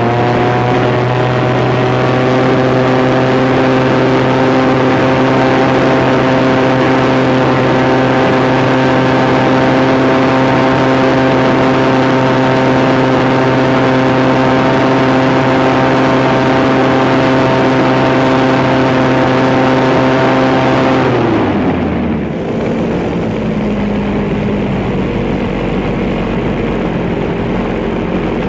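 Radio-controlled tug plane's engine and propeller heard from on board: it climbs in pitch to full throttle in the first second or so, holds one steady high drone for about twenty seconds, then drops sharply to a low idle a little past the twenty-second mark.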